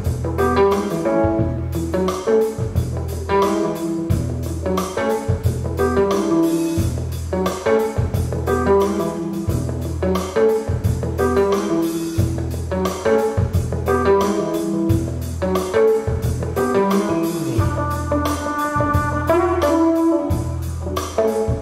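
Guitar-led jazzy music with a steady, regular bass pulse, played back through Tannoy Revolution XT-8 floorstanding loudspeakers driven by Cambridge Audio 851 series amplification.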